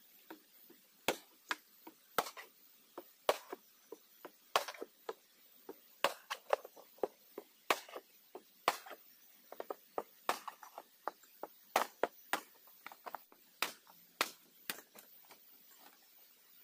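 Hand chopping: sharp, irregular strikes, the louder ones about a second apart with lighter taps in between.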